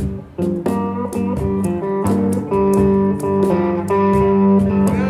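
Electric guitar playing slide blues: a run of picked single notes ringing over a sustained low note.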